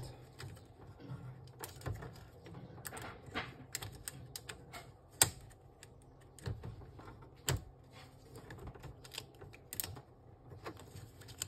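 Irregular sharp plastic clicks and taps as the ink-tube dampers are unclipped from the print head of an Epson L3150 ink-tank printer. The two loudest snaps come about five seconds in and about seven and a half seconds in.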